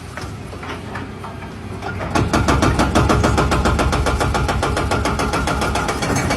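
Remote-control scale bulldozer running, a motor hum with a fast, even clatter that grows louder about two seconds in.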